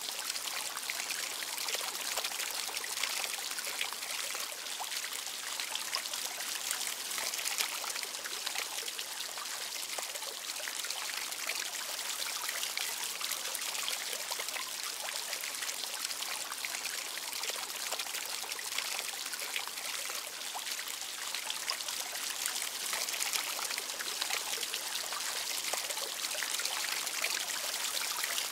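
Fountain water splashing and trickling steadily into its basin.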